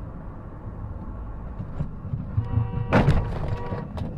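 Road rumble inside a moving car. About two and a half seconds in, a car horn sounds, and about three seconds in there is a loud bang, a vehicle impact, followed by a short clatter.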